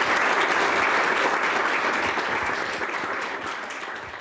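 Audience applauding, a steady clapping of many hands that fades away near the end.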